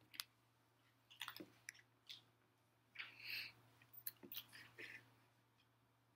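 Near silence: room tone with a low steady hum and a few faint, scattered clicks, plus a short soft hiss about three seconds in.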